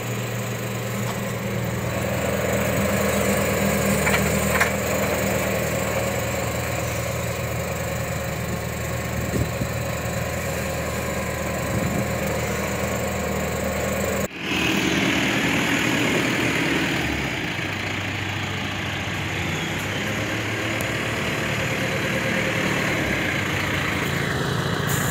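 Tractor's diesel engine running steadily, heard from inside the cab. The sound breaks off for a moment about 14 seconds in, then carries on.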